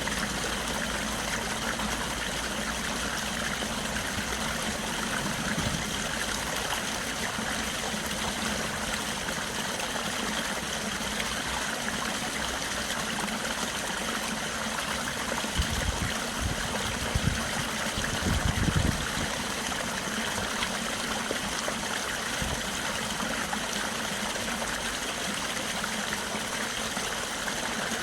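A stream running steadily: a constant rush of flowing water. A few brief low rumbles and bumps come a little past the middle.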